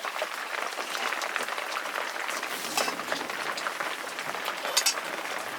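Mealtime eating sounds: a dense run of small clicks and smacks, with two sharper clinks about three and five seconds in.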